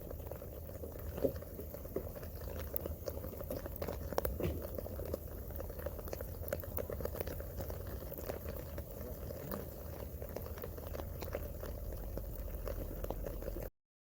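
Rain pattering in dense, irregular drips over a low steady rumble, cutting off abruptly near the end.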